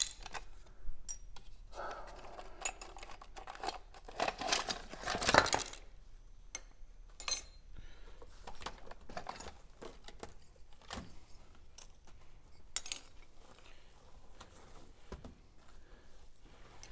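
Small metal letters clinking and clicking as they are handled and set down one by one on a table, with a busier patch of clatter a few seconds in.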